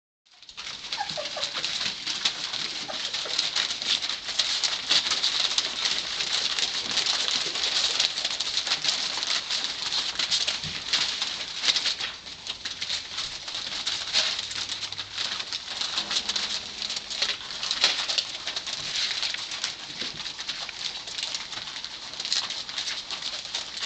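Young Labrador puppies scrabbling over newspaper: a continuous dense crinkling and rustling of paper under many small paws, with a few faint puppy squeaks.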